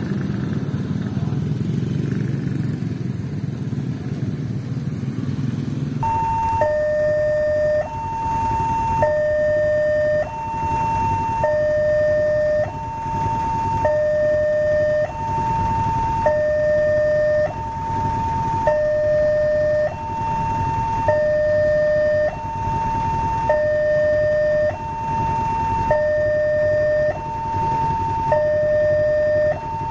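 Railway level-crossing warning alarm sounding a steady electronic two-tone chime, a high tone and a low tone of just over a second each, alternating over and over from about six seconds in. It warns that a train is approaching. Before it, motorbike traffic runs over the crossing.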